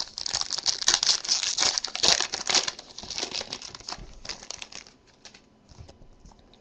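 Foil wrapper of a Topps Strata football card pack being torn open and crinkled as the cards are pulled out. The crinkling is dense for the first two to three seconds, then thins to scattered crackles that stop about five seconds in.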